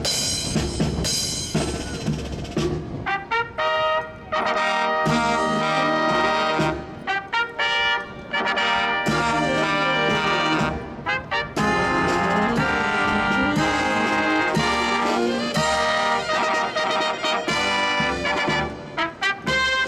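A marching brass band of trumpets and trombones, with drums, playing an upbeat tune live. Short clipped notes alternate with long held chords.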